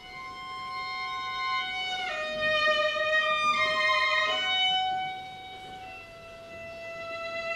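Solo violin playing a slow melody of long held notes, growing louder about two seconds in and softening again after about five seconds.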